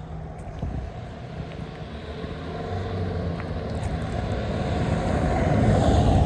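A motor vehicle approaching on the street, its engine and tyre noise growing steadily louder and peaking near the end as it passes close by.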